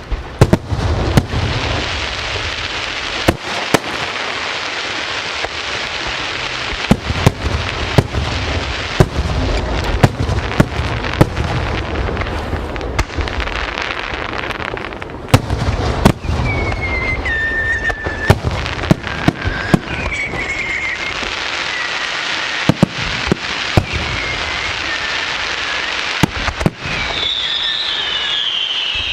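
Aerial fireworks display: a continuous crackling hiss broken by many sharp bangs. From about halfway through, high whistling tones rise and fall over the crackle, growing strongest near the end.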